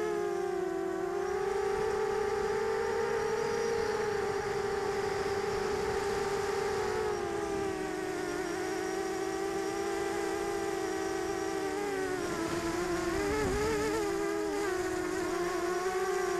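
Diatone 250-size quadcopter's motors and propellers running in flight, heard through its onboard camera: a steady buzzing whine whose pitch wavers, dipping and wobbling about twelve seconds in.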